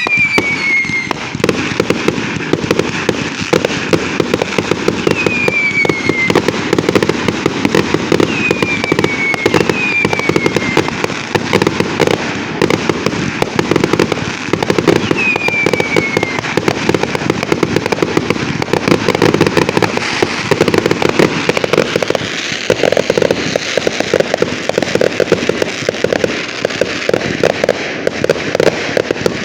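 Fireworks finale: a dense, continuous rattle of pops and cracks, with a few short whistles falling in pitch in the first half.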